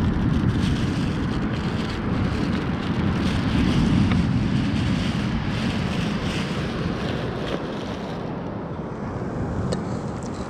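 Wind blowing across the microphone, with the wash of surf behind it: a steady low rumbling noise that swells a few seconds in and eases near the end.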